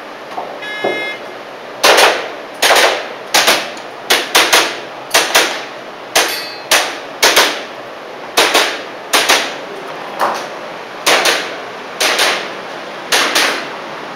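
A shot-timer start beep, then a rapid, irregular string of sharp cracks from an airsoft pistol firing, with some hits ringing on steel targets. This is a timed IPSC practical shooting stage.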